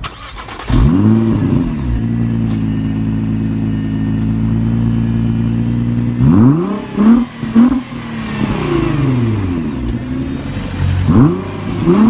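Nissan GT-R R35 twin-turbo V6 starting up about a second in and settling to a steady idle. In the second half it is blipped through several quick revs, one longer rev falling away slowly, then a couple more blips near the end.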